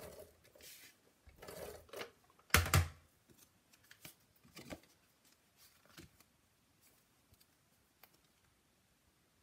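Paper and cardstock being handled on a craft table: rustling and light clicks, with a knock about two and a half seconds in as something is set down, then a few faint taps and rustles as a folded card is opened.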